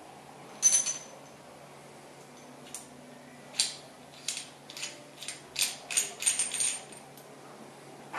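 Light metallic clinks and clicks as the chrome and brass parts of a thermostatic mixer and its cartridge are handled. A single ringing clink comes about a second in, then a quick run of about a dozen small clicks in the second half.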